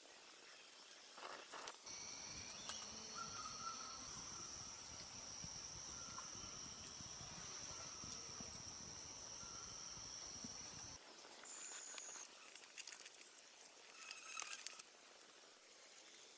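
Faint crackling of a small wood campfire with meat roasting over the embers. A steady high whine runs through it and stops about two-thirds of the way in.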